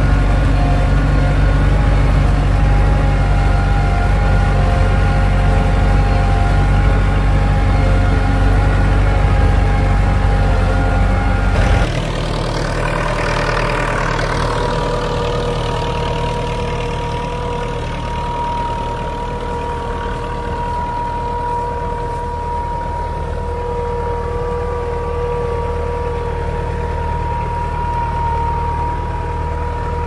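IMT 565 tractor's diesel engine running steadily during ploughing. About twelve seconds in the sound changes abruptly, swells briefly, then settles to a slightly quieter steady run with a thin whine.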